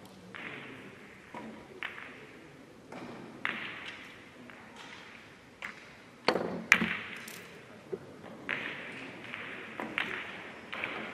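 Billiard shot on an Italian five-pin table: sharp clicks of the cue tip and of balls knocking together, the loudest pair a little past halfway, then further ball clicks and cushion knocks. Fainter clicks come earlier.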